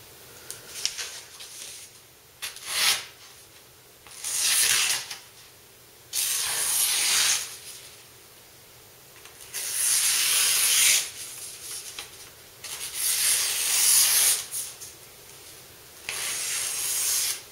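A long sword blade being stropped, drawn along the strop in repeated rubbing strokes: about seven, each a second or so long, with short pauses between. This is the final honing stage after the sharpening is done.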